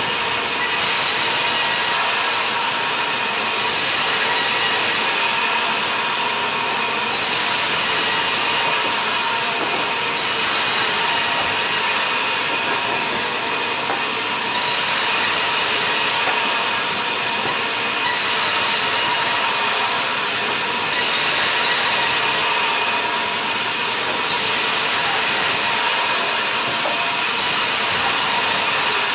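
Sawmill band saw running with a steady whine while its blade cuts lengthwise through a log, the hiss of the cut swelling and easing every second or two.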